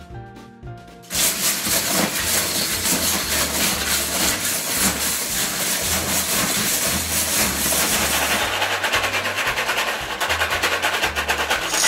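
Background music with a steady beat under a loud, dense rattling clatter of LEGO bricks being churned in a plastic storage tub, starting about a second in. About eight seconds in the rattle changes to a different shaken sound.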